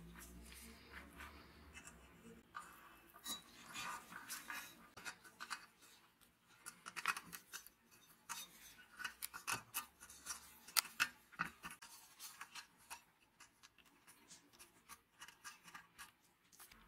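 Irregular small clicks, ticks and rustles of gloved hands handling stranded copper wire and working it onto the metal terminal studs of a black terminal block.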